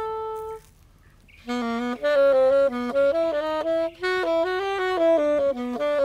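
Solo saxophone improvising. A held note cuts off just after the start, a brief pause follows, then a quick run of notes moving up and down.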